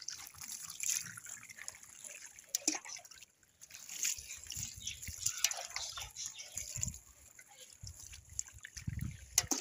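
Water poured from a bowl over a wet dog, trickling and dripping off its fur and the chair, with small splashes.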